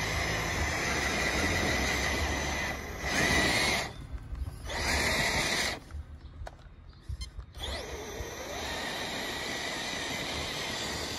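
TRX-4 Sport RC crawler's Holmes Hobbies Revolver motor on a Castle SW4 ESC, whining through its geared drivetrain under throttle as the truck climbs loose dirt. It cuts out briefly about four seconds in, and again for a couple of seconds around the middle, before picking up again.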